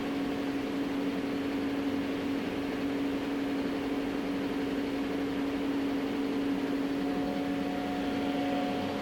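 Steady hum of a powered-up 1994 Haas VF4 vertical machining center's electrical cabinet: one constant tone over an even fan-like hiss.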